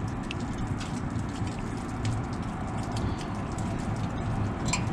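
Light clicks and taps as the metal bearing bracket and plastic frame of a small C-frame fan motor are fitted back together by hand. A few faint clicks are heard over a steady low background rumble.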